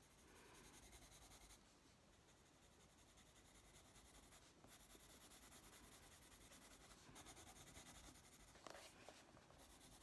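Faint scratching of a waxy Prismacolor coloured pencil on paper, shading with light, repeated curving strokes.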